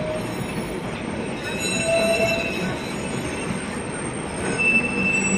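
Blackpool's illuminated Western Train tram set rolling past on the tramway. Its wheels squeal on the rails in high steady tones that come and go over a steady rumble.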